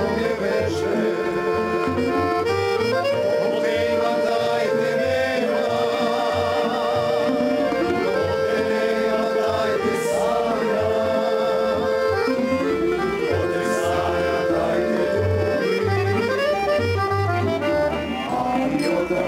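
Tamburica band playing a Serbian folk song live: accordion and plucked tamburas over a double bass, with men singing together.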